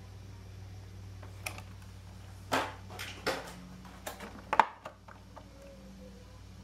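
Cardboard-and-plastic blister toy packaging being handled and swapped in the hands: an irregular run of sharp crinkles and clicks, the loudest a snap about four and a half seconds in, over a steady low hum.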